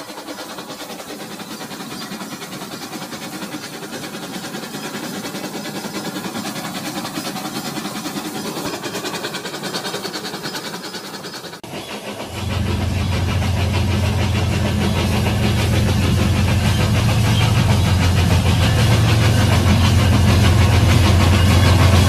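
Remote-control Railking toy train running on plastic track: its small motor and gears whirring and the wheels clattering along the rails. About halfway through it jumps louder as the train runs close by, with a steady low hum.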